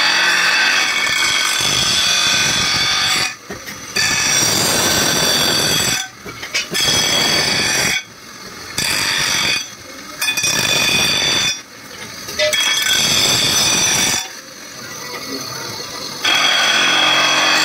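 Bench grinder wheel grinding a steel knife blade, a harsh screech with a high ringing edge. It comes in repeated passes of one to three seconds as the blade is pressed on and eased off, the wheel running on more quietly in the short gaps.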